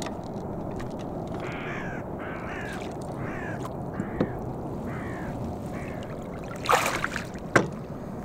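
A crow cawing, about seven short caws in a row, over a low steady wash of water and wind. Near the end come a short splash and a sharp knock as the netted fish is brought out of the water.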